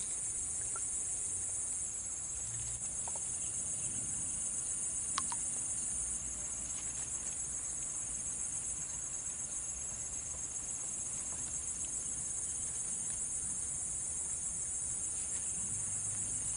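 Steady, high-pitched chorus of insects buzzing without a break, with one faint click about five seconds in.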